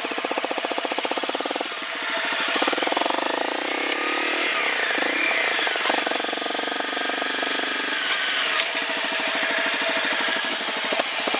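Motorcycle engine running under way, its exhaust pulsing steadily with the revs rising and falling a few times as the rider accelerates and eases off, over road and wind noise.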